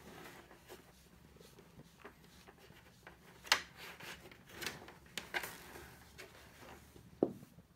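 Brushing strokes of a pink bristle pet brush through a cat's fur: soft, irregular rubbing and rustling scrapes, a few of them sharper. A light knock comes near the end as the cat shifts on the plastic tray.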